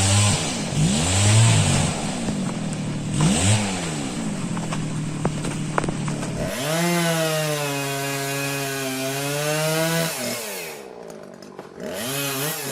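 Chainsaw engine revving up and down in short blips, then held at high revs for a few seconds before dropping away, and revving again near the end.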